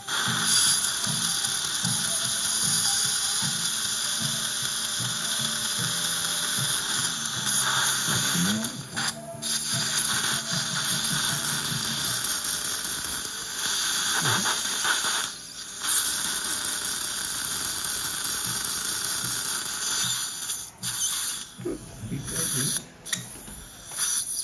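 Dental suction hissing steadily as it draws irrigation water from the mouth, breaking off briefly twice. Beneath it runs a low hum from the water-cooled surgical implant handpiece.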